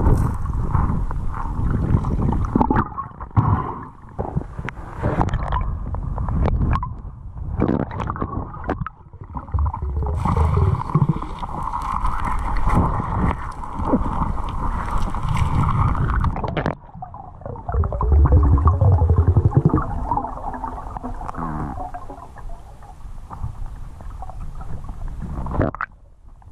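Muffled underwater sound through an action camera's waterproof housing: gurgling and rushing river current with irregular knocks and scrapes as gloved hands handle gear near the camera. A steady hum runs underneath and is strongest in the middle stretch.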